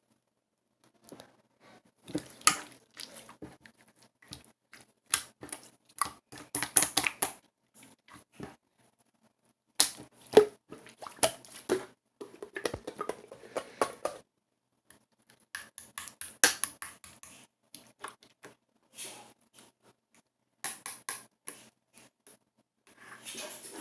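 Small handling noises: irregular clicks, taps and crinkling rustles of objects being moved and worked by hand, with short pauses between bursts.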